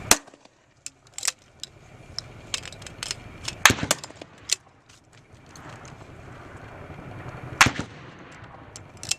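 Gunfire on a military live-fire range. Sharp reports ring out, the three loudest about four seconds apart, with many fainter shots between them.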